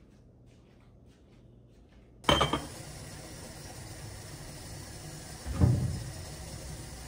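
Ceramic pour-over coffee dripper and mug set down on a granite countertop: two sharp knocks, about two seconds in and again about three seconds later, over a steady hiss from the lit gas burner.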